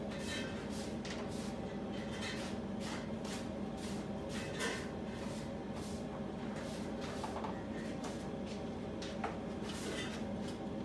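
Steady low motor hum with scattered light clicks and knocks, as of kitchen items being handled.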